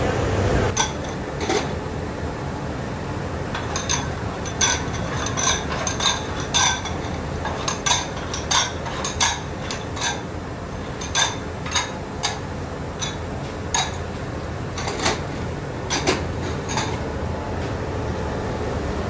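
Ceramic bowls clinking against one another and against shelf boards as they are stacked and handled. From about a second in come a couple of dozen short, ringing clinks at irregular intervals, over a steady low rumble of workshop noise.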